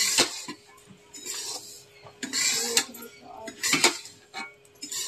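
A hand mixing flour and water in a steel plate, the first stage of kneading maida dough: short bursts of scraping and rustling against the metal, with a few light clinks of a steel tumbler.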